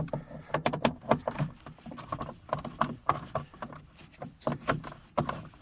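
Irregular clicks and knocks of a Phillips screwdriver working screws out of a 1990 Dodge Grand Caravan's door trim panel.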